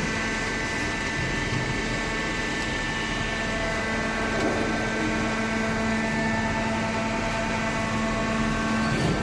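Corrugated cardboard baler running: a steady mechanical hum with several held tones over a noisy rush. Some of the tones change pitch about halfway through.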